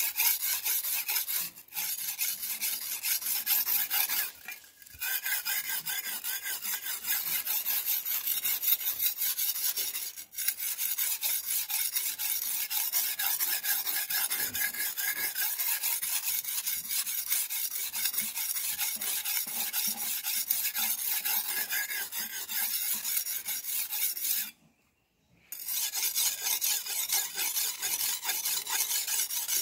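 A steel cleaver blade being sharpened on a whetstone: rapid back-and-forth scraping strokes of steel on stone. The strokes break off briefly about two, five and ten seconds in, and stop for about a second near twenty-five seconds before starting again.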